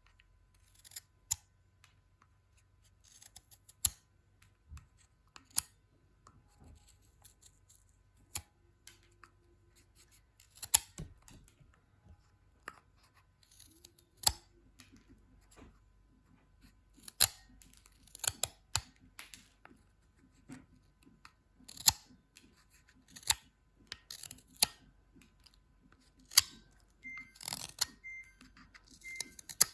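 Carpenter pencil being sharpened: irregular short, sharp cutting strokes through the wood and lead, a second or two apart and sometimes in quick runs of several, each with a brief scraping hiss.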